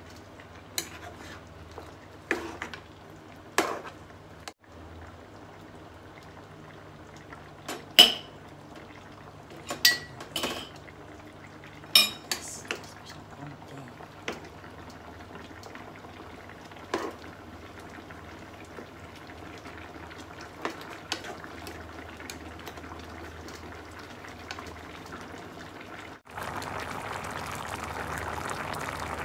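A metal spoon scraping and clinking against a nonstick frying pan as a thick cream stew is stirred, with scattered sharp knocks. About 26 seconds in the sound cuts to the steady bubbling of the cream sauce simmering.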